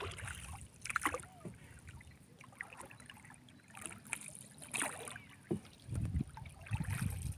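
Water sloshing and splashing around a small boat, with scattered knocks and a few low thumps near the end.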